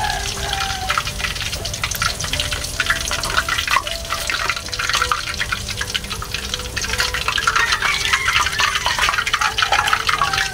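Tofu deep-frying in hot oil in a wok, the oil sizzling with a steady dense crackle.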